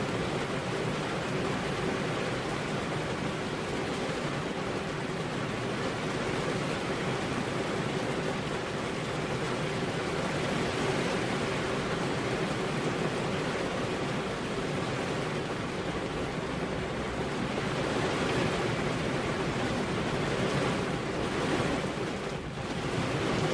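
Steady rain with wind, an even, unbroken hiss with no thunder heard.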